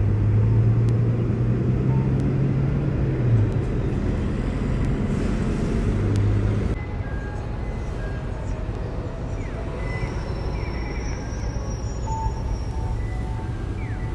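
Road traffic: a motor vehicle's low engine hum over a steady rumble, easing off about seven seconds in.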